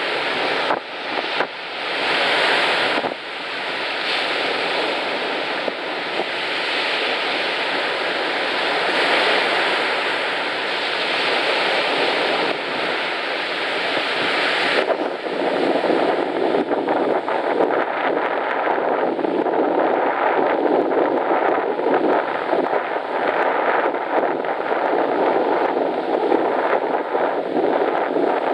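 Surf washing on a sandy beach, with wind buffeting the microphone. About halfway through the high hiss drops away and a lower, rougher rushing takes over.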